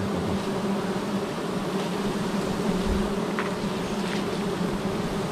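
Wild honeybees buzzing around an opened nest: a steady, low hum, with a couple of faint clicks partway through.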